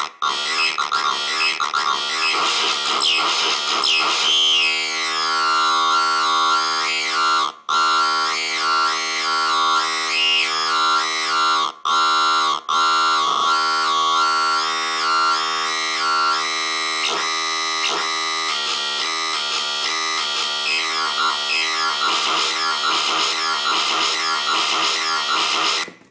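Handmade Master Looper noise box playing real-time electronic noise loops: buzzy, pitched drones with warbling, gliding tones above, shifting as its knobs are turned. The sound drops out briefly three times and cuts off at the end.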